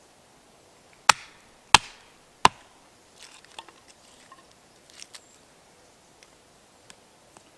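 Firewood being chopped: three sharp strikes about two-thirds of a second apart, then lighter knocks and handling of the wood.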